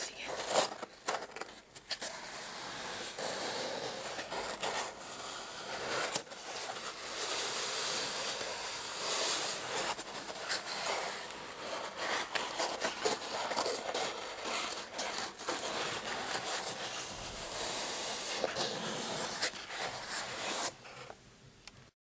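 Fingernails scratching and tapping on a cardboard egg carton: a continuous dry scratching with scattered sharp taps, stopping about a second before the end.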